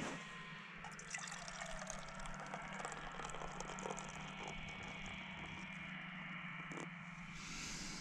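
Beer poured from a can into a metal canteen cup: a steady trickling pour with many fine crackles, getting a little louder near the end.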